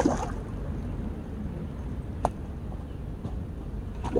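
Steady low rumble of wind outdoors, broken three times by short sharp splashes of a hooked crucian carp thrashing at the surface as it is played on a long pole rod.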